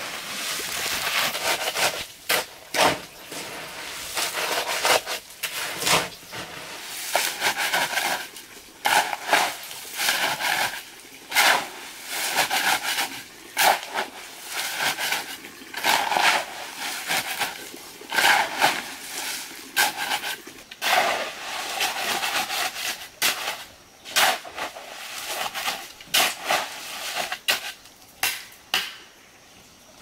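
Metal shovel blade scraping and crunching into a heap of crushed stone and gravel, stroke after stroke at an uneven pace. The strokes stop near the end.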